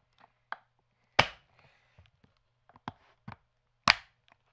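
Pelican Storm hard plastic case being shut: a few light clicks and knocks from the lid, then two sharp snaps, about a second in and near the end, as its two latches lock.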